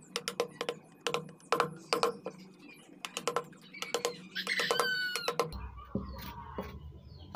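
Hand chisel cutting into teak, sharp clicks about two to three a second as the blade bites and chips break away. About four and a half seconds in there is a short bird call. Near the end a steady low hum sets in.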